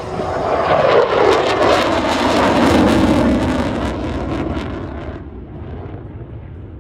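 A USMC F-35B's Pratt & Whitney F135 jet engine passing close, a loud jet roar with a crackling edge whose pitch slides downward. It fades away after about five seconds.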